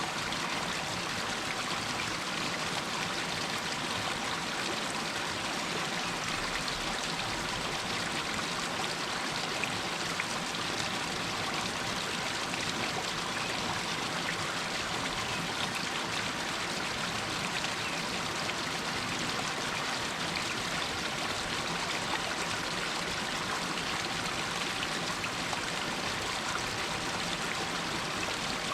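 Shallow water running and trickling down a rocky hillside, a steady splashing rush.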